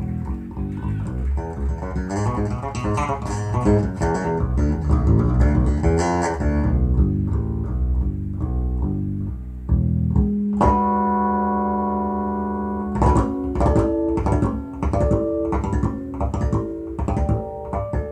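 Guitar music with bass played back through Pioneer SP-FS52 bookshelf-style speakers in a small room: a busy run of plucked notes, a held chord about ten seconds in, then plucked notes again.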